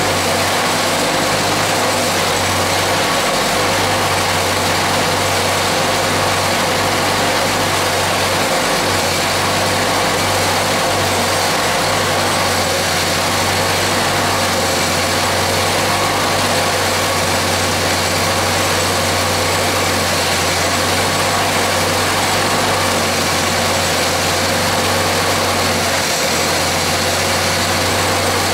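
Homemade single-cylinder, air-cooled bicycle engine running steadily on the bench without its cooling fan or shroud, kept going by feeding it fuel from a bottle.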